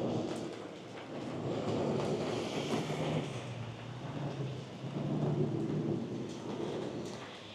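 Heavy rain and storm wind, with a low rumble that swells twice.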